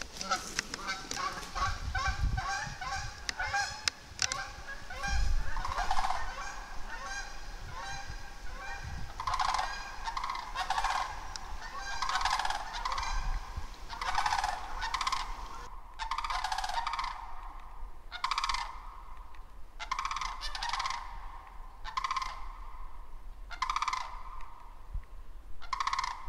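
A flock of Canada geese honking: a fast, overlapping run of calls for the first several seconds, then thinning to single honks about once a second.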